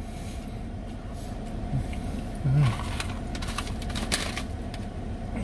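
Foil-lined snack bag crinkling as it is picked up and handled, a run of crackles about three to four seconds in, over a steady low hum.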